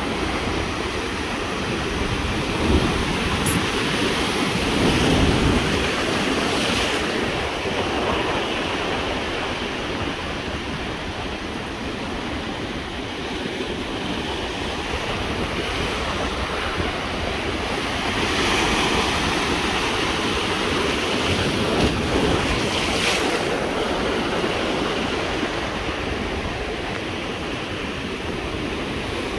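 Ocean surf breaking and washing around a stone jetty, a steady rush that swells louder about five seconds in and again around twenty seconds in, with wind buffeting the microphone.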